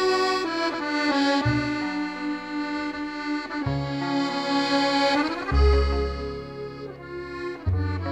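Background music: a slow tune of long held chords over a bass note that comes in about every two seconds.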